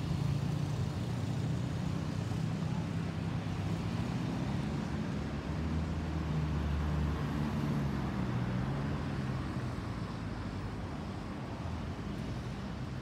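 Steady low rumble of an Airbus A320-214's twin CFM56 jet engines as the airliner climbs out overhead, easing off slightly near the end.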